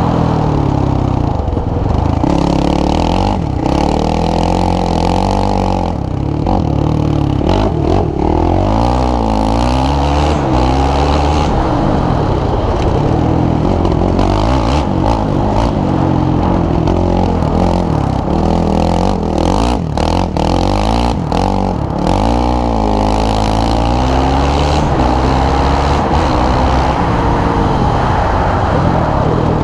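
Sport quad bike engine revving up and falling back repeatedly under hard riding, heard from the rider's helmet. Wind buffets the microphone, with scattered knocks and clatter.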